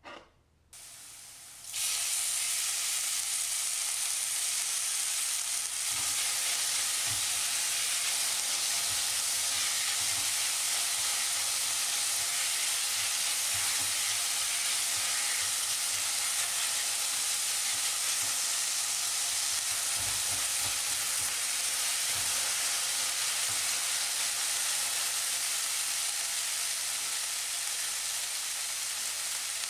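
Chopped kimchi hitting a hot stainless steel wok and frying in oil: a loud, steady sizzle starts sharply about two seconds in and keeps on as it is stirred, with a few soft knocks of the spatula against the pan.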